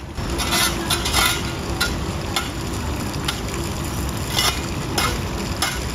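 A shovel scraping over hard paving in a series of short strokes at uneven intervals, over a steady low rumble.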